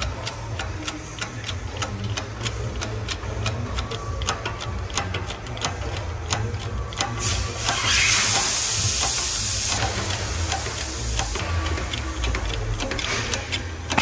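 Hand-pumped hydraulic shop press forcing a seized wheel bearing out of a Peugeot 107 hub carrier: a steady run of clicks, two or three a second, with each stroke of the pump. A steady low hum runs underneath, and a hiss rises for a few seconds in the middle.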